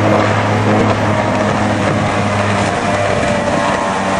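Racing jet boat's big-block engine running flat out, a loud steady drone held at high revs, with the hiss of the jet's spray.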